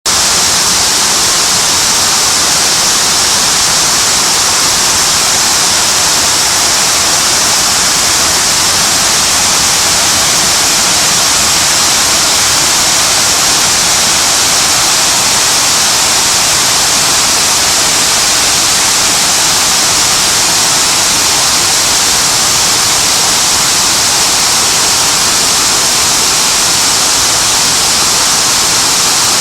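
Water sheeting down the Hines Water Wall, a 64-foot crescent-shaped fountain carrying about 11,000 gallons a minute, making a loud, steady rushing hiss that does not change.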